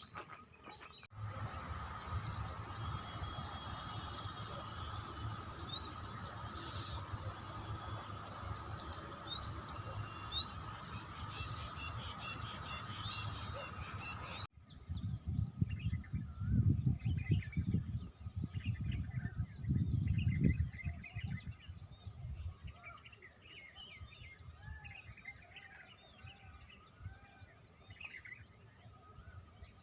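Wild birds chirping and calling with many short, high notes over steady outdoor background noise. About halfway through the sound cuts to a quieter scene, where a low rumble comes and goes for several seconds under fainter bird calls.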